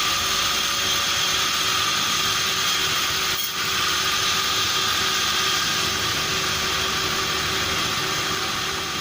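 Sawmill machinery running steadily: a loud, even noise with a low hum underneath, briefly dipping about three and a half seconds in.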